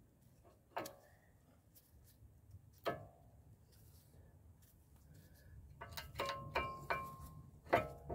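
Metal clicks and clinks of new brake pads being seated in a VW T5.1's front brake caliper carrier, the steel pad backing plates knocking against the carrier. A single click about a second in and another about three seconds in, then a quick run of clinks that ring briefly, and a louder click near the end.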